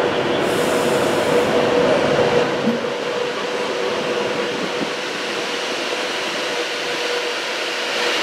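Virgin Trains Class 390 Pendolino electric train moving past along the platform: a steady hum with one held tone over a haze of rolling noise.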